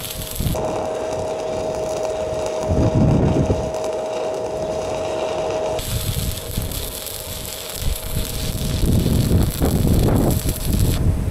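Stick welding: the arc crackling and hissing with a steady hum that holds from about half a second in to about six seconds in, over heavy wind buffeting on the microphone.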